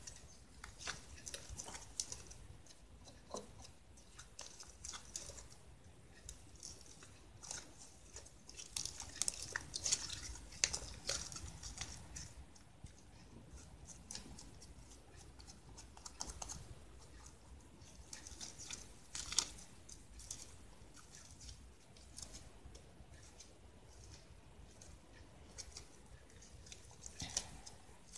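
Fluffy slime made from clear glue, borax and shaving foam being kneaded and pulled by hand, giving faint sticky squelches and small crackling pops as trapped air bursts. The slime is still too sticky and clings to the fingers, with irregular clusters of clicks, busiest about a third of the way in.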